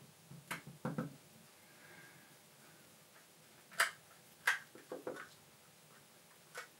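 Light clicks and taps of a plastic OO gauge model locomotive being handled, its parts knocking together, about eight in all with the sharpest a little under four seconds in.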